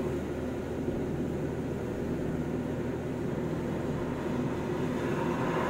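Steady road and engine noise inside a moving car's cabin: a low, even drone with no sudden sounds.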